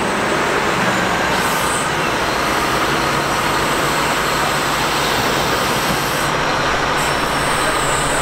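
Caterpillar 972M wheel loader's diesel engine running steadily under load as the boom hydraulics raise a full bucket of sand.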